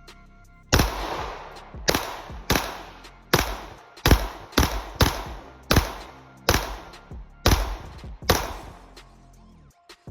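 Glock 19X 9mm pistol fired about eleven times at a steady pace, each shot ringing briefly after the crack. Background music plays underneath.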